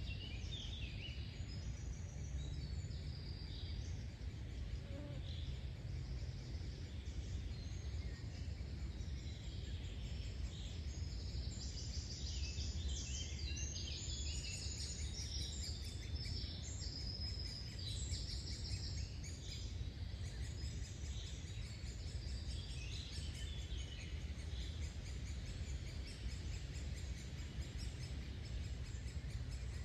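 Summer forest ambience: several small birds singing and chirping, busiest around the middle, over a steady low rumble.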